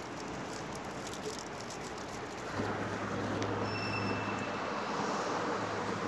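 City street background noise: a steady haze of traffic. About two and a half seconds in, a low steady hum comes in and holds.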